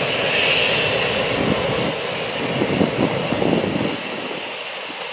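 Freight train rolling through the yard, with a brief wheel squeal near the start, and wind buffeting the microphone. The rumble eases about four seconds in.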